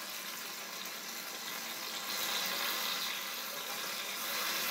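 Blueberry pancakes sizzling in coconut oil in a stainless steel pan: a steady frying hiss that grows a little louder about two seconds in.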